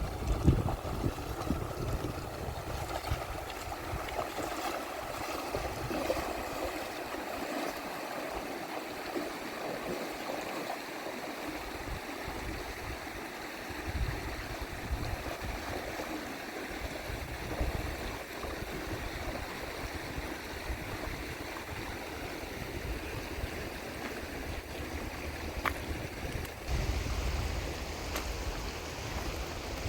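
River water flowing steadily, with low rumbles at the start and near the end.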